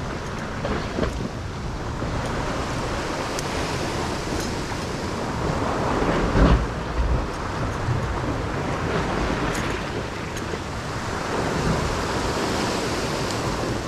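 Ocean swell surging and washing over a rock ledge below a cliff, mixed with wind buffeting the microphone; it swells louder about halfway through.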